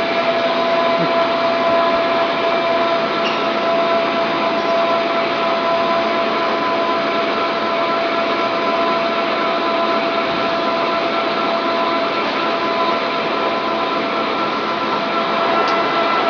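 Electric water heater inner-tank assembly machine running: a steady mechanical hiss with several high whining tones over it, the lowest whine fading out about two-thirds of the way through.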